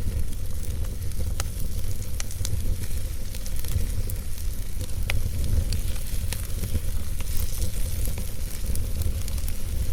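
Wood fire burning in a fireplace: a steady low rumble of flames with scattered crackles and pops from the burning logs, one sharper pop about five seconds in.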